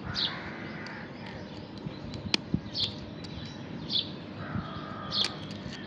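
A bird chirping briefly every second or so, with a few small sharp clicks of metal parts being handled, the sharpest about two seconds in.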